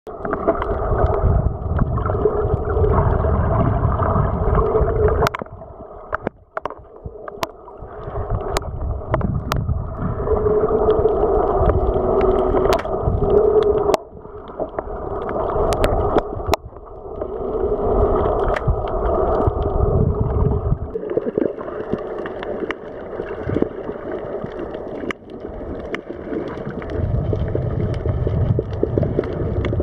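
Muffled underwater water noise picked up by a submerged camera: a gurgling drone that swells and fades several times, with scattered sharp clicks.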